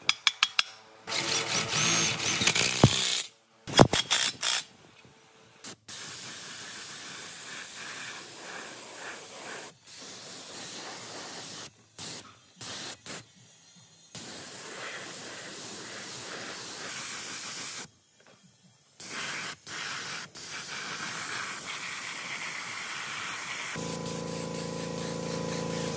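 A few sharp hammer blows on the dented steel fan cover of an old electric motor in the first seconds. Then long hissing bursts of spray paint with short breaks between them as the motor is sprayed black. A steady hum comes in near the end.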